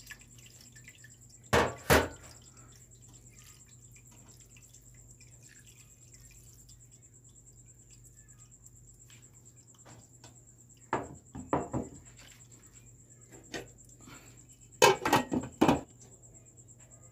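Perforated plastic ladle knocking and scraping against a metal mesh strainer while scooping wet cooked tapioca pearls, with water dripping through. The knocks come in short groups: two about two seconds in, a cluster about two thirds of the way through, and a longer one near the end.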